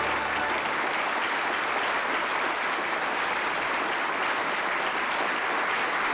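Studio audience applauding steadily. The last of the theme music dies away just after the start.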